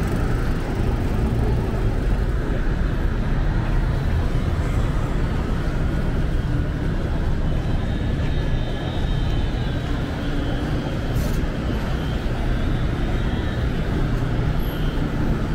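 City street traffic: a steady rumble of vehicles on the road.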